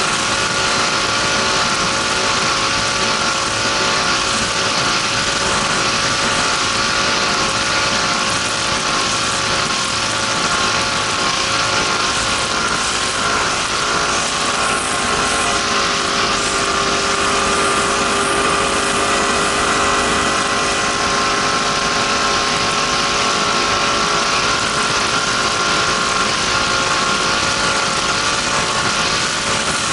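Racing powerboat's engine running steadily under way, its pitch wavering slightly about halfway through, with a broad rush of noise over it.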